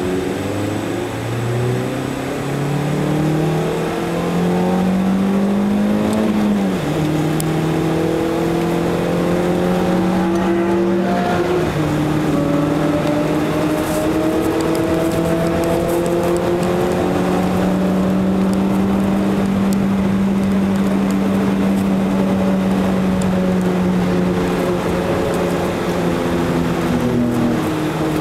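Renault Clio's engine heard from inside the cabin, pulling hard under acceleration: its pitch climbs steadily and drops at an upshift about six seconds in, shifts again about eleven seconds in, then holds a high, steady note at speed with another downward shift near the end. Road and wind noise run underneath.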